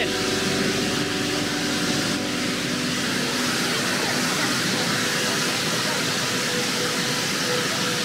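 Steady rush of water from the creek's waterfall at the weir.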